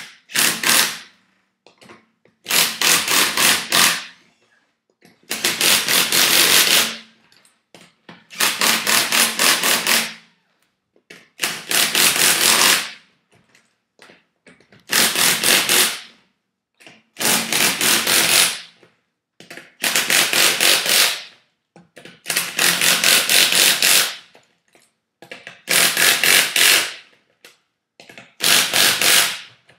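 Hand ratchet wrench clicking in rapid runs as lug nuts are run down onto the wheel studs. It comes as about a dozen separate bursts, one every two to three seconds, each lasting a second or two.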